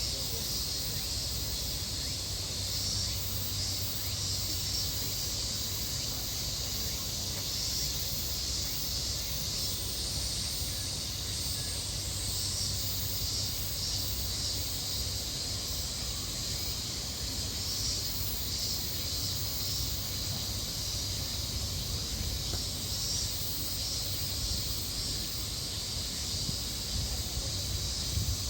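Steady high-pitched insect chorus with a slight pulsing, over a low steady hum.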